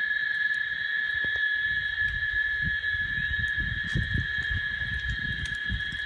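Cicadas buzzing in one steady, unbroken high drone. Irregular low rumbling comes in about two seconds in.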